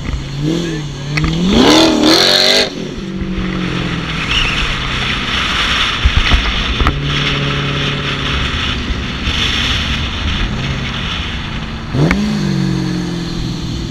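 A car engine revved hard, its pitch climbing for about two seconds and then cut off sharply. It then runs steadily and is blipped once more near the end.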